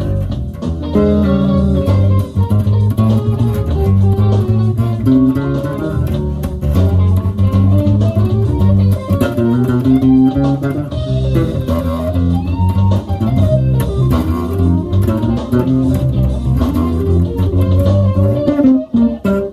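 Four-string Jazz Bass-style electric bass played fingerstyle through an amplifier: a busy funk line of short, clipped notes moving up and down the neck without a break.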